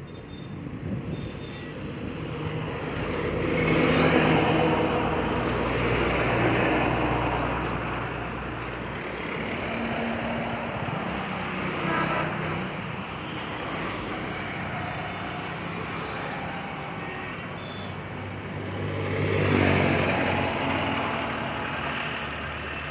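Honda City sedan's petrol engine running at low speed inside the enclosed deck of a car-carrier trailer, swelling in loudness twice as it is given throttle to move the car along the deck.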